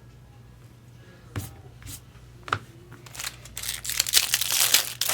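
A few light taps, then from about three and a half seconds in the foil wrapper of a 2019 Bowman Draft Jumbo card pack crinkling loudly as it is torn open.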